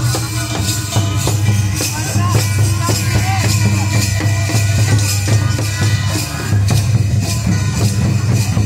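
Loud music with a steady drumbeat and percussion, with voices mixed in.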